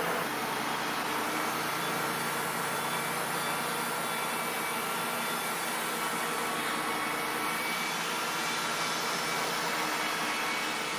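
Band sawmill running steadily, its blade sawing through a log.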